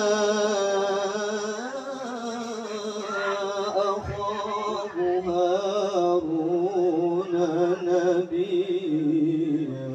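A male qari reciting the Quran in the melodic tilawah style through a microphone and loudspeakers. He draws out long vowels in wavering, ornamented melismas, with a short breath about four seconds in and a lower line in the second half.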